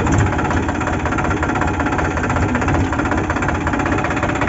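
Tractor diesel engine running under load while pulling a lowered disc harrow, with a fast, even clatter. A short sharp click near the end.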